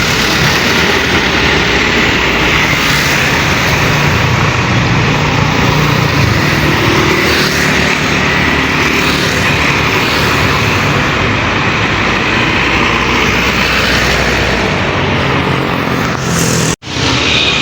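Steady, loud roadside traffic: engines and tyres of passing vehicles on a busy road. The sound cuts out for a moment near the end.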